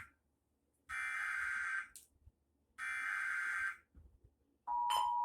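Emergency Alert System SAME header: two harsh, buzzy bursts of digital data, each about a second long and a second apart. About 4.7 s in, the steady two-note EAS attention tone starts, announcing an alert message.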